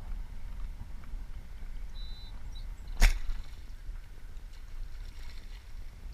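Compound bow firing a bowfishing arrow into shallow water: a single sharp snap of the released string about three seconds in, over a steady low rumble.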